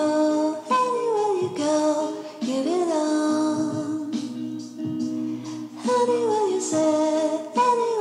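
Background music: a song with a singing voice carrying a gliding melody.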